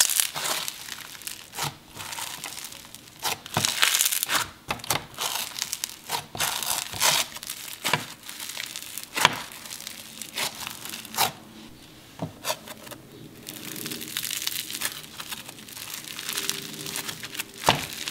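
Foam-bead slime (floam) being pressed, squeezed and pulled apart by hand, crunching and crackling with many sharp, irregular pops as the tiny foam beads are crushed and rub together. The crackling eases off briefly about two-thirds of the way through, then picks up again.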